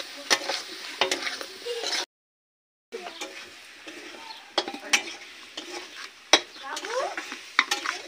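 Metal spatula stirring potato pieces frying in an aluminium kadai, scraping and tapping the pan over a sizzle. After a short break of silence about two seconds in, hands mix flour dough in a steel plate, with light clinks and taps of metal.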